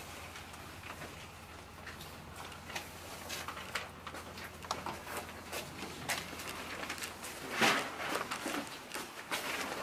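The hush of a crowded room of people writing on paper: scattered faint rustles, shuffles and small knocks over a steady low hum, with one louder noise a little under 8 seconds in.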